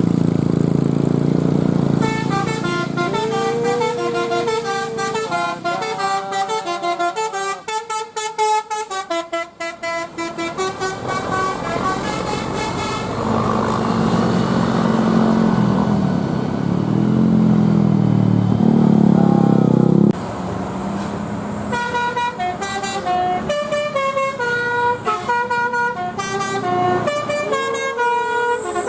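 Bus telolet basuri horn, a multi-note musical horn, playing quick melodic runs of stepped notes. For several seconds in the middle a deeper, louder wavering tone takes over before the melody resumes.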